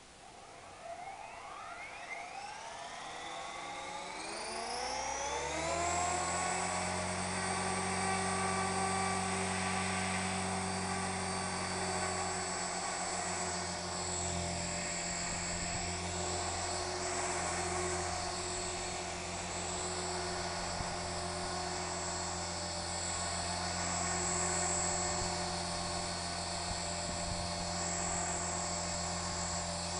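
Electric 450-size RC helicopter (Curtis Youngblood Rave 450) spooling up: a rising whine of motor and rotor over the first six seconds or so. It then runs steadily at flying head speed, the pitch wavering slightly later on.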